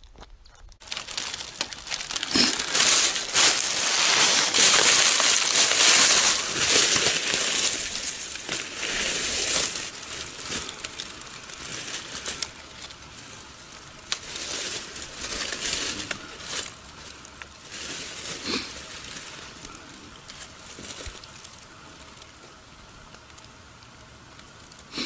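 Dry fallen leaves crunching and rustling, with crackly clicks. The sound is heavy and continuous for the first several seconds, then thins to scattered rustles.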